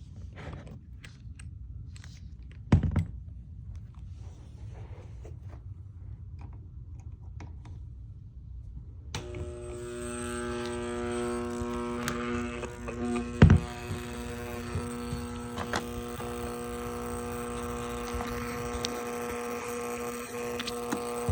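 Induction motor humming steadily once power is applied about nine seconds in, the hum of a motor that is energised but won't start. A few knocks come before it, one of them loud, and another sharp knock comes about halfway through.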